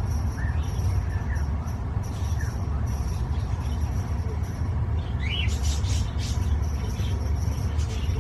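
Steady low rumble under faint, brief budgie chirps, with a short rising chirp and a few clicks about five seconds in.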